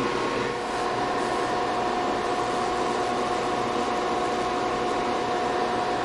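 Cooling fans of rack-mounted electronic test instruments running: a steady whir with a few faint steady hums.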